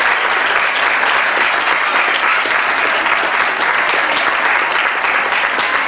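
Audience applauding steadily, the dense clapping of many hands.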